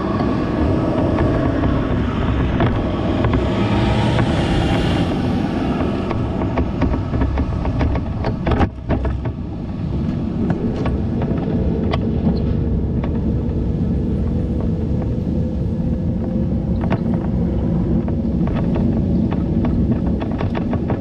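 Steady low rumble of a bicycle ride: road and wind noise, with scattered light clicks and a sharper knock about eight and a half seconds in.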